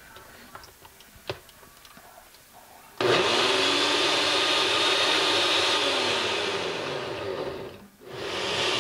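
Countertop blender with a glass jar puréeing soaked dried chile peppers in a little water: a few faint clicks as the lid and controls are handled, then the motor starts abruptly about three seconds in and runs steadily. Near the end it cuts off sharply and starts up again at once.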